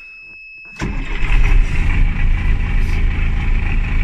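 MTZ tractor's diesel engine starting: it fires abruptly about a second in and settles into a steady, loud run. Before it catches, only a thin steady high tone is heard, which stops as the engine fires.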